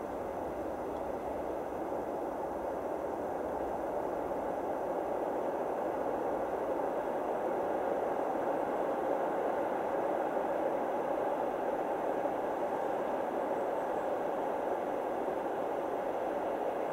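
Distant PKP ET22 electric locomotive hauling a freight train on the approach: a steady noise that slowly grows louder as the train draws nearer.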